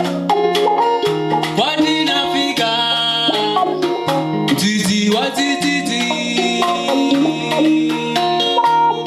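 Live band playing an Afro-jazz gospel song, melodic lines over a bass line and a steady beat.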